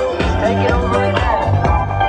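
Music playing with a heavy bass line and a melody over it.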